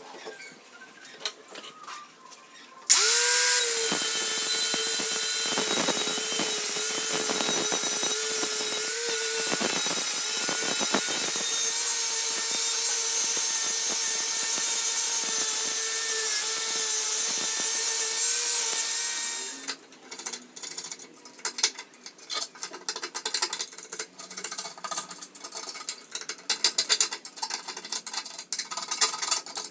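A handheld electric power tool switched on about three seconds in, running with a steady high whine for about sixteen seconds, then switched off and winding down. Small clicks and scrapes of handling metal parts come before and after it.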